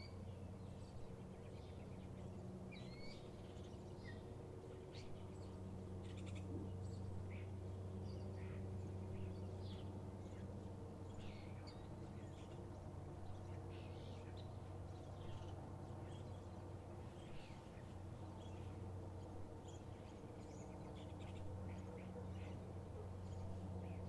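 Outdoor dawn ambience: scattered short bird chirps and calls, some with quick upward glides in pitch, over a steady low hum.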